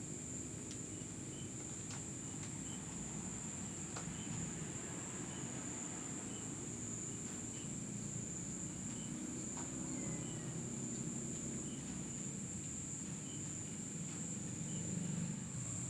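Night insect chorus: a steady high-pitched trill runs throughout, with faint short chirps about once a second over a low background rumble and a few faint clicks.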